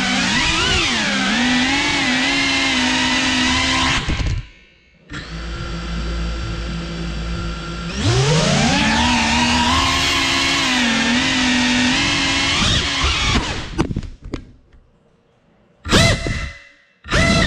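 Four brushless motors and ducted propellers of a GEPRC Cinelog 35 cinewhoop FPV drone buzzing in flight, the pitch rising and falling with the throttle. The sound drops away about four seconds in and comes back weaker. It climbs sharply in pitch around eight seconds, fades almost to nothing about fourteen seconds in, then returns as two short, loud spin-ups near the end.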